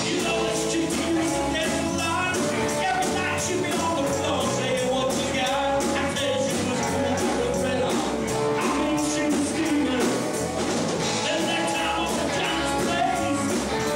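Live rock band playing, with a singer and electric guitar over a steady beat.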